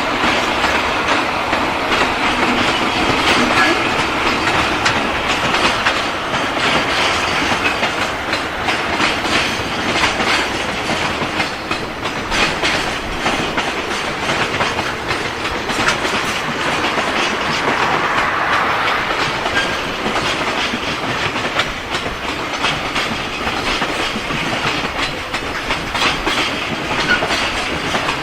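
Freight train wagons rolling past at speed, wheels clicking over the rail joints in a continuous rumble.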